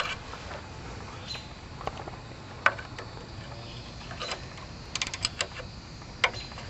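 Scattered sharp clicks and metallic clinks of hand tools working on bolts, with a quick run of several clicks a little past the middle.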